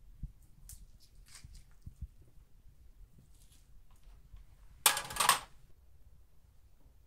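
Metal kebab skewers clattering together about five seconds in, a short loud rattle in two quick parts. Before it come faint clicks of chicken pieces being slid off a skewer.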